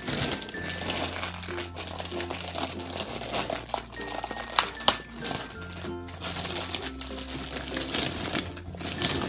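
White plastic poly mailer bag crinkling and rustling as it is opened and the case inside is pulled out, with a couple of sharp crackles about halfway through. Background music with a sustained bass line plays under it.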